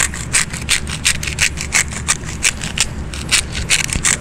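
Hand pepper grinder being twisted, its burrs cracking peppercorns in quick rasping strokes, about three to four a second.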